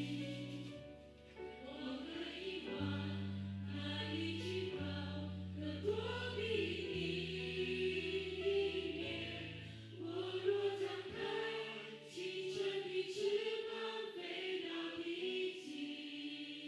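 Voices singing a Chinese worship song together, accompanied by a live band: held bass notes that change every second or two, acoustic guitar and keyboard, with occasional cymbal strokes from the drum kit.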